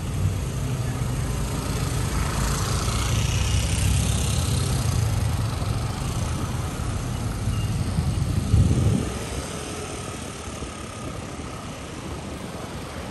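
Road traffic passing close by: engines rumble, and one vehicle goes past with a swelling and fading rush of tyre noise about three seconds in. The rumble peaks and then drops away after about nine seconds, leaving a quieter traffic hum.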